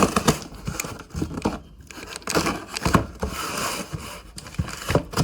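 A cardboard shipping parcel being opened by hand: packing tape tearing and cardboard and packaging rustling and scraping, irregular, with a few sharp clicks.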